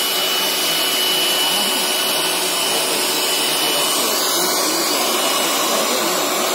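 Leister Twinny T hot-air wedge welder running as it welds a seam in plastic liner sheets. Its hot-air blower makes a steady blowing noise with a thin high steady whine.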